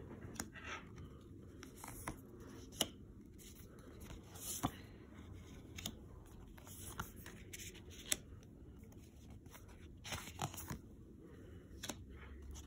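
Tarot cards being dealt face down onto a cloth-covered table: soft slides and light taps of card stock, one every second or two.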